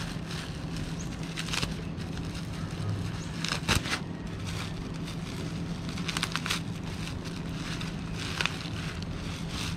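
Black plastic wrapping crinkling in several short bursts as a bundle of wrapped plastic nursery pots is lifted and handled, loudest about three and a half seconds in. A steady low hum runs underneath.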